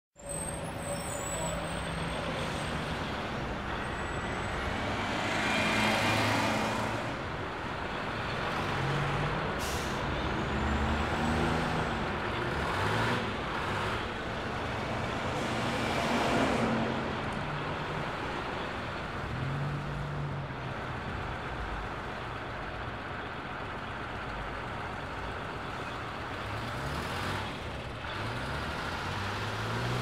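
Bus station ambience: bus engines running over a steady traffic rumble, with air brakes hissing several times. Longer hisses swell and fade about six, twelve and sixteen seconds in, and a short sharp hiss comes near ten seconds.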